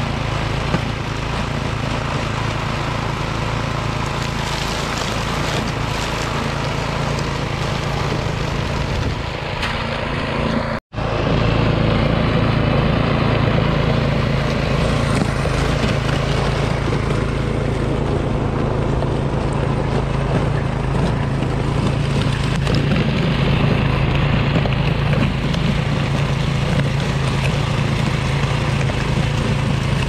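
Troy-Bilt Storm 2410 two-stage snowblower's Powermore single-cylinder engine running steadily under load as the auger and impeller throw snow. The sound cuts out for an instant a little under halfway through and returns louder.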